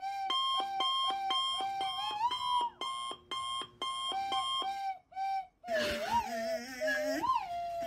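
Electronic beeping like an alarm clock, short tones at about four a second, mostly on one pitch with a brief higher run midway. It stops about five and a half seconds in, and a wavering tone that slides up and down twice follows.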